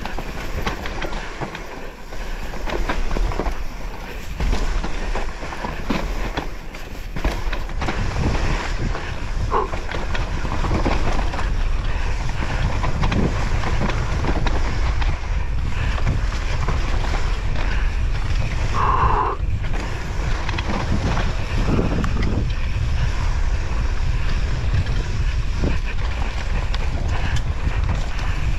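Wind buffeting the microphone in a steady rumble, with clattering knocks throughout and a brief higher-pitched tone about two-thirds of the way through.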